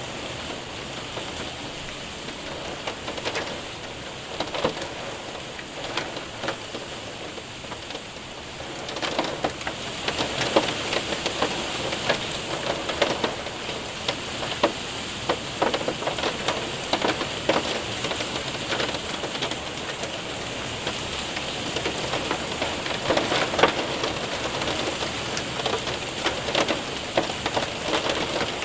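Hail and rain hitting a window and roof: a steady rain hiss scattered with many sharp ticks of hailstones striking. It gets heavier about nine seconds in.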